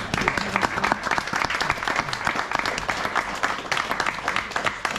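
Audience of a few dozen people applauding, steady dense clapping.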